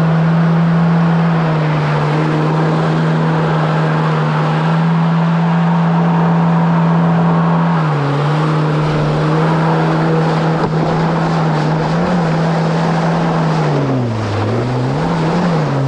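Kawasaki SX-R 1500 stand-up jet ski's four-stroke four-cylinder engine running at steady high revs over the rush of water along the hull. The revs dip briefly about halfway through, then near the end drop and swing up and down several times.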